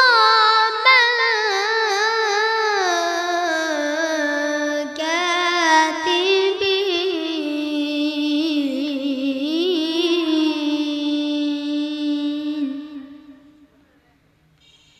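A young boy reciting the Quran in melodic tajweed style: one long, high held phrase with quick wavering ornaments, starting high and settling lower in pitch, that trails off about 13 seconds in.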